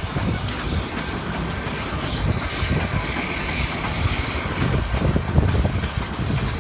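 Narrow-gauge tourist train running, heard from an open-air passenger car: a steady low rumble and clatter of wheels on track.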